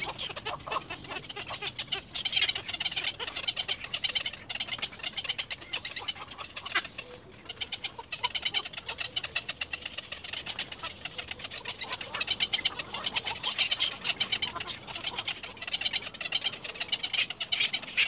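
Little egret chicks in the nest calling: rapid, chattering runs of ticks in bouts, with a short break about seven seconds in.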